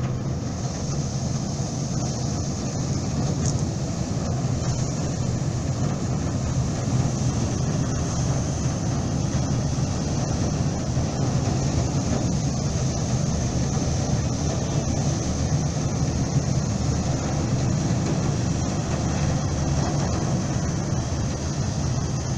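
Large Corsica Ferries car ferry's engines running as it moves slowly past at close range: a steady low rumble with a steady high hiss over it.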